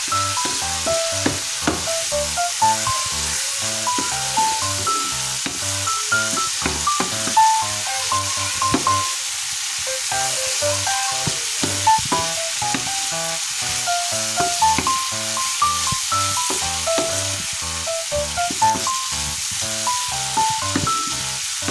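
Beef and green beans sizzling in a hot frying pan, stirred and turned with a wooden spatula, with short ticks against the pan. Background music plays underneath.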